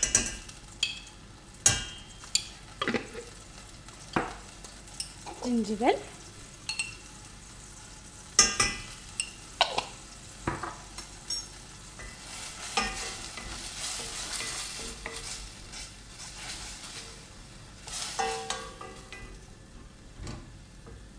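A wooden spoon stirring chopped onion and garlic frying in oil in a stainless steel pot, with repeated sharp knocks of the spoon against the pot. The oil sizzles more steadily partway through.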